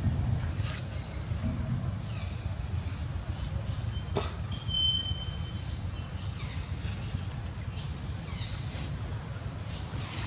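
Outdoor background: a steady low rumble, with scattered short high chirps and squeaks over it and one brief held whistle-like tone about halfway through.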